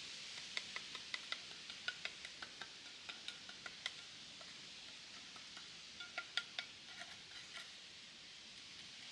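A series of light, sharp clinks with a brief ringing tone, coming irregularly two or three a second, then pausing and returning in a short cluster, over a steady hiss.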